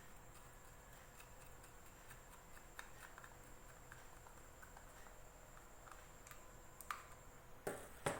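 Faint scattered clicks and light taps of a screwdriver and small metal and plastic parts as an electric plastic bag sealer is screwed back together, with a couple of louder knocks near the end.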